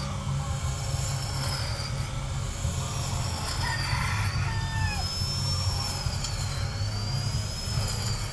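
Cordless battery grass trimmer, a Makita replica, running as it cuts grass, its high motor whine gliding up and down in pitch as the cutting head meets the grass.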